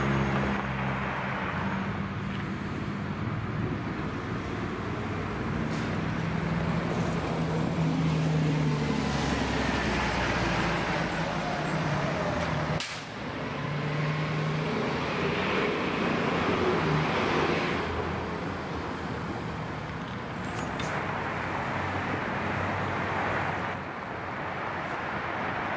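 Road traffic passing: motor-vehicle engine drone and tyre noise that swell and fade as vehicles go by.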